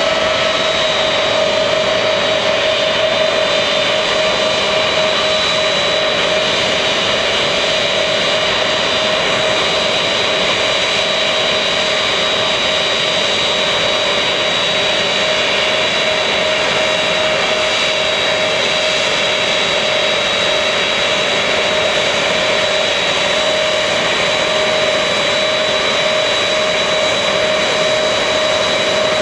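Turbofan engines of a Lockheed C-5 Galaxy running at taxi power: a steady jet whine with a high, thin tone over a continuous rushing roar.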